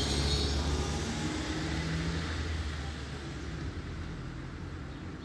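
Motor vehicle engine running past with a low rumble and a hiss, loudest at the start and slowly fading away.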